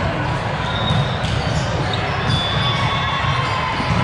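Busy indoor volleyball hall ambience: a steady din of voices and balls thumping and bouncing on the surrounding courts, with scattered short high squeaks.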